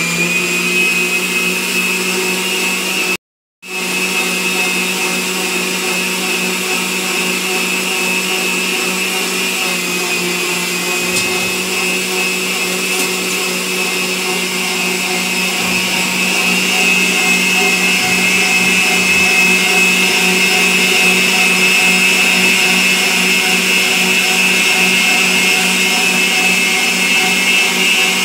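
Electric stand mixer running steadily with a high motor whine as its beater creams margarine and sugar in the bowl, with a brief silent gap about three seconds in.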